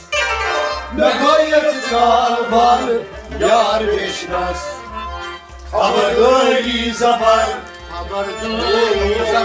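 Men singing a Kashmiri Sufi devotional song to a plucked rabab, in phrases of a couple of seconds with short breaks between them.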